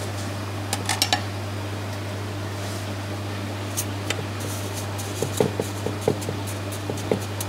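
Sharp metallic clinks and small rattling ticks from handling the parts of a stainless-steel canister filter: a cluster about a second in, then a run of taps and ticks over the last few seconds, over a steady low hum.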